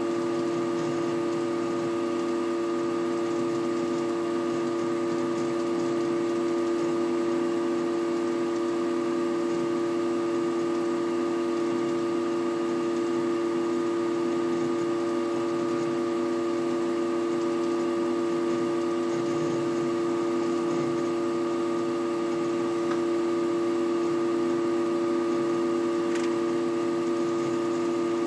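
Desktop PC system unit humming steadily on several fixed pitches, with some crackling, picked up by a camera resting on the case. The computer makes this noise while it hangs after several browser tabs are opened, with its yellow indicator lamp stuck on: the fault the owner is trying to diagnose.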